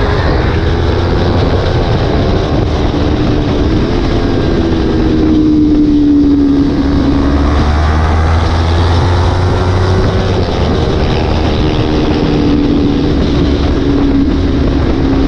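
Sport motorcycle's engine running under way with heavy wind noise, its pitch slowly rising and falling with the throttle.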